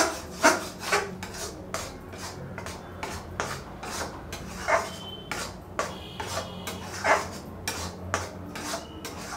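A spatula scraping and stirring crumbly, nearly finished khoya around a kadhai, in repeated gritty strokes about two a second.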